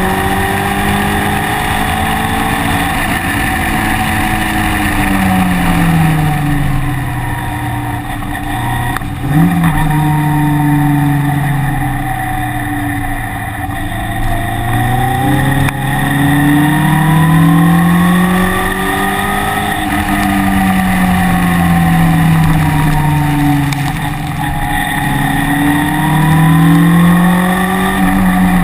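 A track vehicle's engine, heard onboard, accelerating and slowing through corners: its pitch climbs steadily for a few seconds, then falls back, again and again. A steady rushing noise runs underneath.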